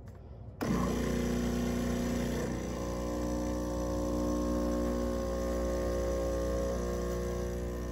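De'Longhi Stilosa espresso machine's pump switching on under a second in and running with a steady buzzing hum as it pushes water through the coffee to pull a shot; its tone shifts slightly a couple of seconds in.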